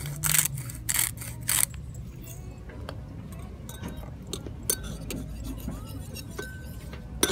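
Salt shaken in several quick bursts from a plastic bottle into a bowl, then a metal table knife stirring thick shampoo in a ceramic bowl, with faint scraping and a few small clinks of the blade against the bowl.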